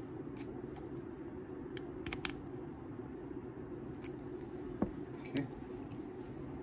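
Scattered small metallic clicks and ticks of a screwdriver and a second tool against an alien coil and the steel deck of a rebuildable vape atomizer during coil positioning, over a steady low hum.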